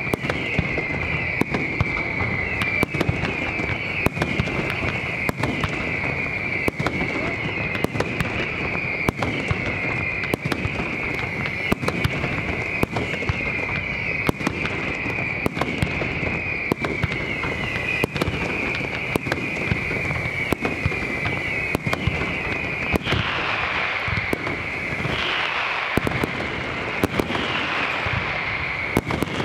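Fireworks display: aerial shells bursting in a rapid, irregular run of bangs, two or three a second, over a continuous high hissing crackle. The crackle turns rougher and fuller for the last few seconds.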